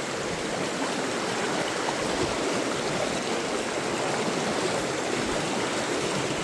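Fast-flowing stream water rushing steadily, heard close up while wading through it.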